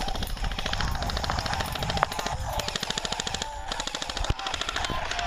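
Airsoft guns firing on full auto: a fast, even rattle of rapid shots in long strings with short breaks.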